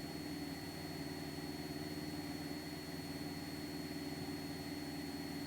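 Cessna 172's piston engine and propeller giving a faint, steady drone at full power in the climb-out after a touch-and-go.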